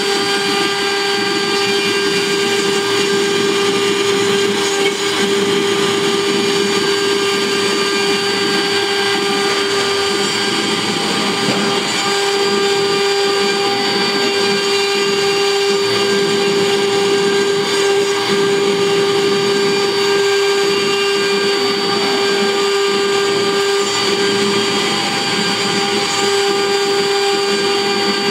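CNC wood router milling a relief carving with a fine tapered engraving bit: a steady high spindle whine over the scratchy rustle of the cutter working through the wood.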